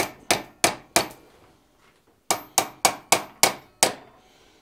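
Hand hammer striking the top of a red-hot forged key shank, driving its hollow end down over a bolt head held in a vise to open the key's socket to fit the lock's bolt. Two runs of quick ringing blows, about three a second: four, then a pause of about a second, then six more.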